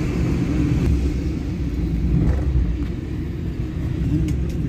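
Steady low rumble of a moving van's engine and tyres on the road, heard from inside the cabin.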